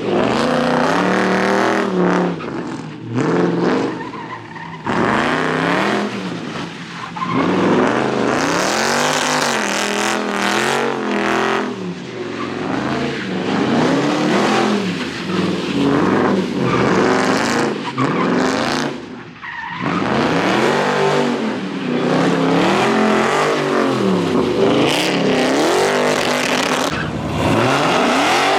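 Car engine revving up and down over and over while its tyres squeal and skid, as in a burnout or donuts.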